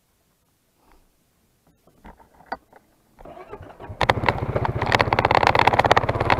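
A few small clicks and knocks, then an ATV engine cranks and starts a little after three seconds in and runs loudly with a fast, even pulse as the quad moves off.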